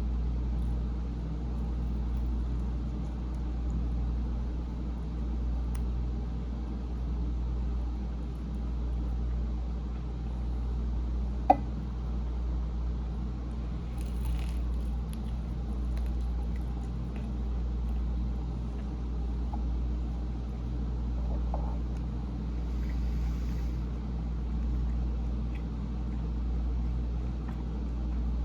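A steady low hum, with a few faint small clicks and one sharp click about eleven and a half seconds in.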